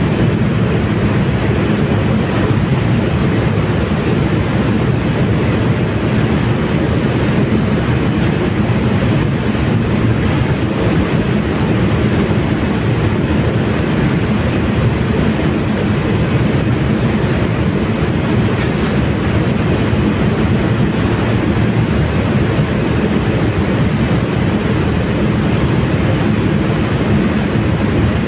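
Steady, loud drone of a cruise ship's engine-room machinery running, a dense low rumble with a faint high whine above it.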